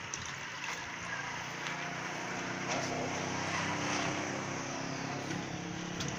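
An engine running steadily, growing a little louder about halfway through.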